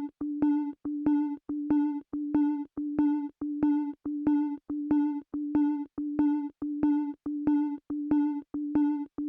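Music intro: a single synthesizer note pulsing on and off in a steady rhythm, a little under two pulses a second, each pulse with a short click.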